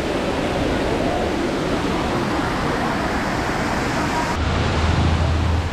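Water rushing over a rocky cascade below a waterfall, a steady rush. About four seconds in, a low rumble joins it.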